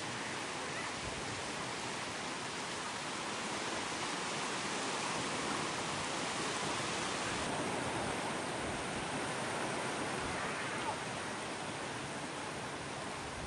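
Sea waves breaking and washing up a beach: a steady rush of surf that swells a little about halfway through.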